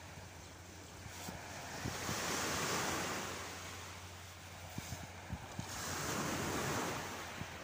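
Surf washing on a sandy beach, with wind blowing over the microphone. The sea noise swells twice and falls back, and the wind buffets the microphone with small low thumps.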